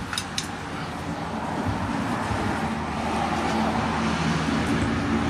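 A motor engine running and growing steadily louder, with two sharp metallic clicks near the start.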